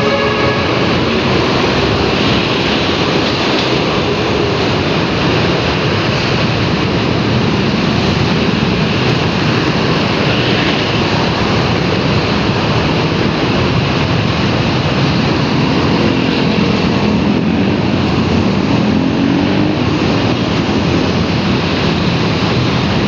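Steady loud rushing of wind and road noise while riding a bike in traffic. A faint engine tone rises and falls in the middle of the stretch.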